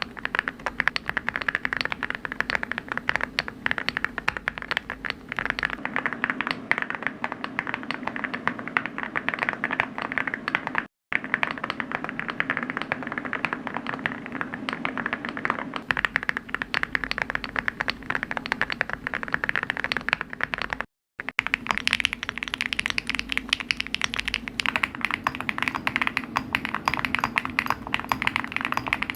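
Fast, continuous typing on a keyboard, a dense run of key clicks and clacks. It breaks off to silence for an instant twice, about 11 and 21 seconds in, where one clip is spliced to the next.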